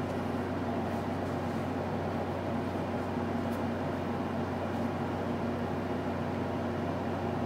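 A steady mechanical hum with an even hiss over it, unchanging throughout.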